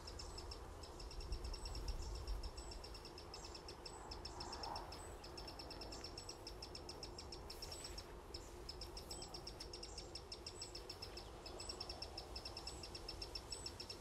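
Young wren calling: a rapid series of high ticking calls in runs, broken by short pauses.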